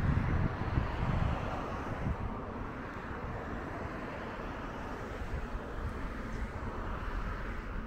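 Outdoor background noise with a low rumble that is strongest in the first second or two, then eases into a steady, even hum.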